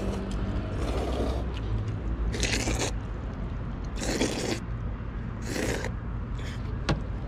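Jajangmyeon noodles slurped up hard from the bowl, sucked in like a vacuum cleaner: three long noisy slurps starting about two seconds in, about a second and a half apart.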